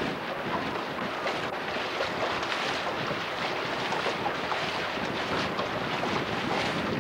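Steady wind rush on the microphone mixed with water noise from a boat moving along on the water, an even hiss with no distinct strokes.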